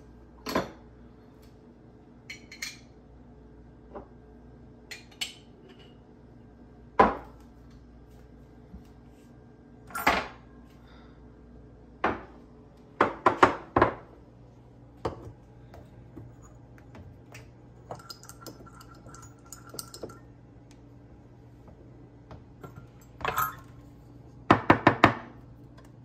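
Metal clinks and knocks of a stainless-steel espresso portafilter being handled and set down on a countertop as ground coffee is dosed into it: scattered single strikes, with quick runs of three or four taps about halfway through and again near the end.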